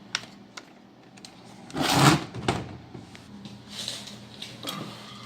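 Clicks and a short clatter from a Jeep Cherokee XJ door's lock mechanism being worked by hand, the loudest clatter about two seconds in.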